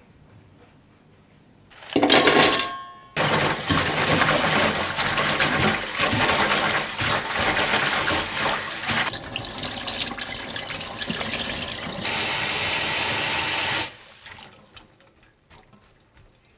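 Tap water running into a stainless steel bowl while hands swish and rub dried eggplant slices under the stream to rinse them. A short burst of noise comes about two seconds in, and the running water cuts off near the end, leaving only small splashes.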